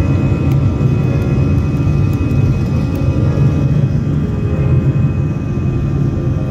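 Steady low cabin rumble of an Airbus A320-200 rolling along the runway, with the jet engines' faint steady hum above it, heard from inside the cabin.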